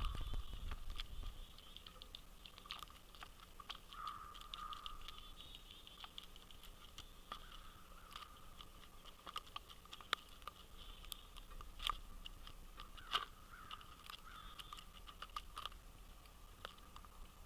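Birds pecking at seed on a feeder: irregular small taps and crunches, a few of them sharper and louder, over a faint steady background.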